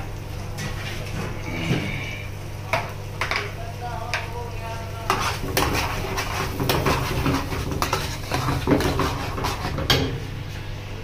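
Steel ladle scraping and knocking against a metal frying pan while stirring a thick masala gravy, the strokes coming thick and fast from about halfway through. A steady low hum runs underneath.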